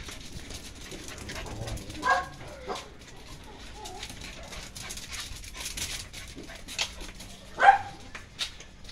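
A small dog giving a few short barks, one about two seconds in and the loudest near the end, with light scuffs and rustling in between.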